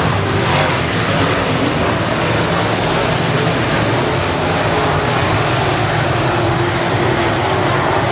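Several semi late model dirt-track race cars' V8 engines running hard at racing speed, a loud, steady engine noise.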